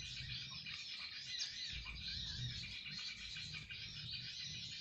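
Many small birds chirping and twittering at once, a continuous overlapping chatter of high, quick calls.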